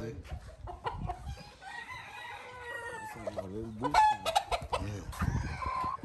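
Gamecock roosters crowing, several overlapping calls, with clucking and a few scattered knocks.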